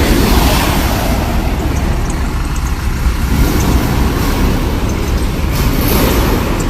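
Truck engine running under load as the driver tries to pull away, a steady heavy rumble.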